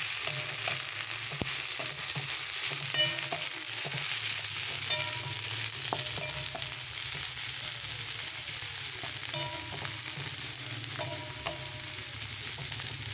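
Sliced onions frying in hot oil with whole spices in a metal wok: a steady sizzle, with a wooden spatula stirring and scraping against the pan. The onions are being fried until reddish-brown.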